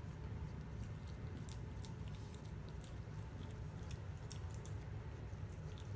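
Bengal kitten chewing wet cat food from a plate: soft, irregular small clicks of eating.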